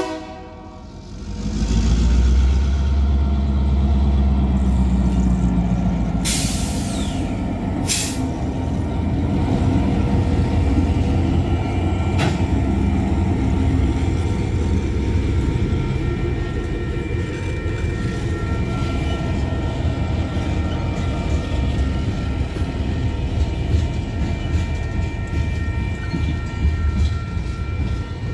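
Union Pacific diesel locomotive passing close by, its engine's deep rumble strongest in the first few seconds, with two short high hisses about six and eight seconds in. Then tank cars and hopper cars roll past in a steady rumble of wheels clicking over the rails.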